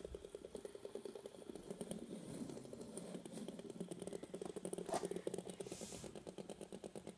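Two plastic fidget spinners stacked one on the other, spinning on a wooden tabletop: a faint, fast, even rattle as the spinning pair rubs and skitters across the wood.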